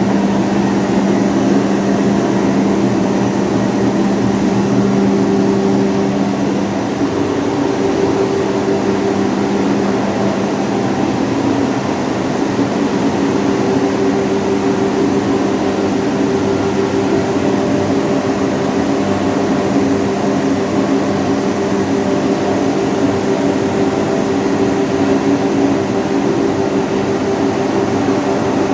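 55 kW hammer mill grinding plant running with its blowers: a loud, steady mechanical drone with humming tones. A lower hum drops away about seven seconds in while the rest carries on unchanged.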